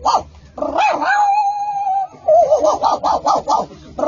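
A dog yelping in quick high-pitched runs of about seven yelps a second, with one long held note in the middle.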